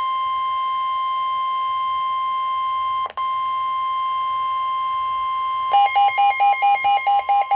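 Emergency alert warning tone: a single steady alarm tone, broken for a moment about three seconds in. Near the end a rapid beeping, about five beeps a second, starts over it.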